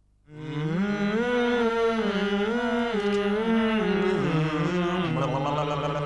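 Sung chant: a slow melody of held notes that step up and down, beginning about a third of a second in and settling on one steady low note near the end.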